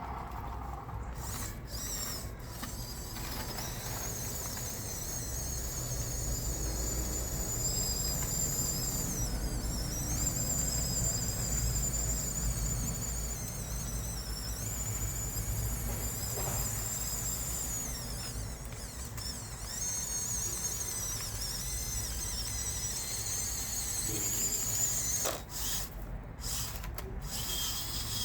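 Huina 1554 RC bulldozer's electric drive motors and gearboxes whining as it works, the high whine wavering in pitch and dipping a few times as the machine changes speed, with a brief stop near the end.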